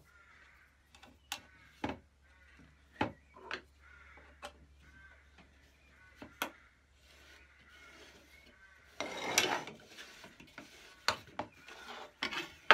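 Scattered small metal clicks and taps with light scraping as the brass nuts of a backsaw handle are fitted and turned onto their screws with a screwdriver against the wooden handle. About nine seconds in comes a louder scraping rub lasting about a second.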